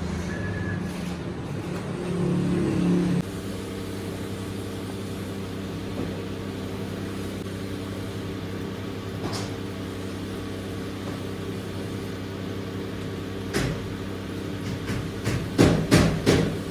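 CNC wood router running with a steady low machine hum that shifts about three seconds in, with several sharp knocks near the end.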